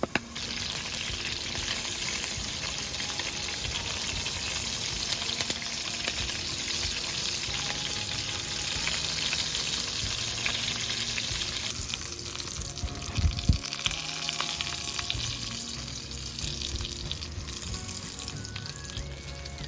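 Chicken nuggets sizzling as they fry in oil, loudest through the first twelve seconds and easing after. A sharp knock comes about thirteen seconds in, over quiet background music.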